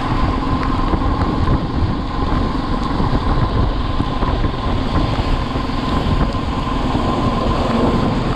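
Steady rush of wind over the microphone on a moving motorcycle, with the bike's engine and road noise rumbling underneath and a thin steady whine.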